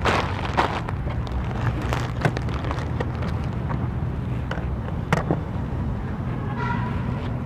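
Steady low rumble of motor vehicles with scattered light clicks and taps throughout, and a brief pitched sound near the end.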